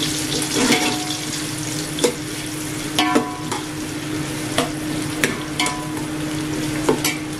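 Sliced onions sizzling in hot oil in a metal pot while a metal ladle stirs them, knocking and scraping against the pot several times, some knocks ringing briefly.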